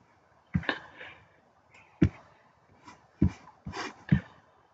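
Sharp clicks and knocks from a computer mouse and desk handling, about six of them at uneven intervals, some in quick pairs, with a soft rustle between two of them.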